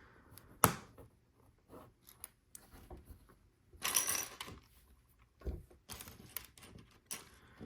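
Plastic LEGO pieces clicking and clattering as they are handled and pressed together, with a sharp click under a second in and a longer rattle of loose pieces about four seconds in.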